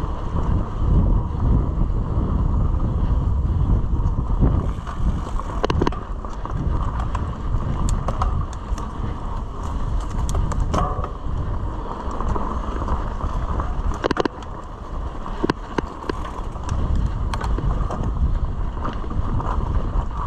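Mountain bike riding along a dirt trail: wind buffeting the microphone and tyre rumble, with scattered clicks and rattles from the bike over the bumps.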